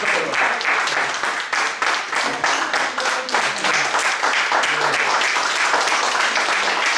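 Audience applauding steadily, with faint voices underneath.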